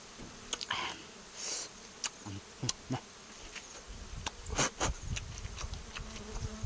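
Honeybees buzzing steadily around a freshly cut honeycomb, mixed with wet mouth clicks and slurps of someone biting and sucking honey from the raw comb; the loudest slurps come a little before five seconds in.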